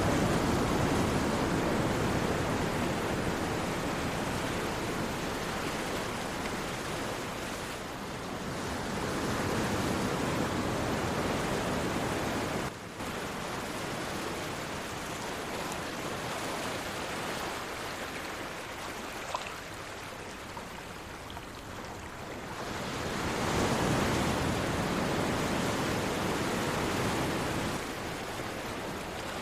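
Sea surf washing ashore in slow swells, waves rising and ebbing every ten seconds or so, with no other sound over it.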